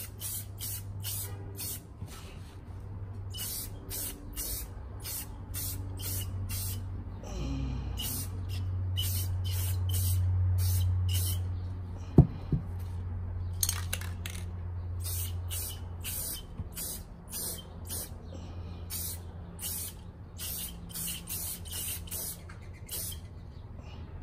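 Rust-Oleum aerosol spray can hissing in rapid short bursts, about two a second, in runs with brief pauses. A steady low hum runs underneath, and a single sharp click sounds about halfway through.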